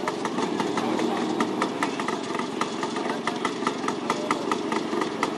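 An IWL scooter's single-cylinder two-stroke engine idling, with an uneven popping beat of about five pops a second.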